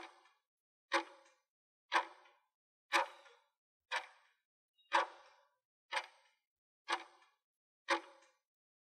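Countdown-timer clock ticking sound effect: nine sharp ticks, one a second, each with a short ring-out, marking the seconds left to answer.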